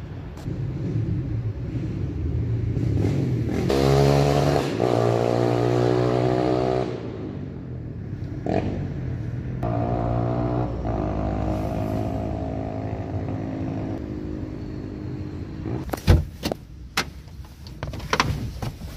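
Motor vehicle engines running nearby with a steady drone, loudest from about four to seven seconds in and again from about ten seconds. A string of sharp knocks and thumps follows near the end.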